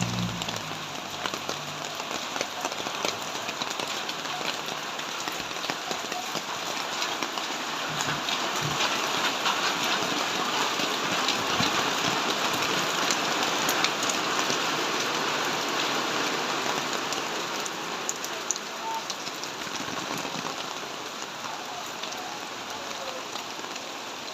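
Heavy rain pouring down steadily, a dense patter of drops hitting surfaces, a little louder in the middle.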